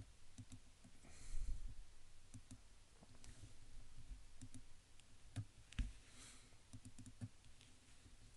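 Computer mouse buttons clicking: scattered single clicks and quick pairs. A short soft rushing noise comes about a second in and again just past six seconds.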